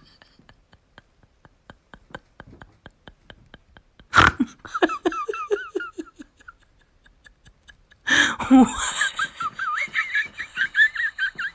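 Large dog howling with its head thrown back, a wavering, yodel-like warble that rises and falls. There are two long bouts, the first about four seconds in and the second about eight seconds in, each opening with a loud sudden burst. Before them there is a stretch of faint regular ticking at about five a second.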